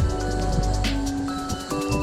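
Background music with a steady beat: held synth-like notes over a bass line, with ticking hi-hats and a snare hit about every second.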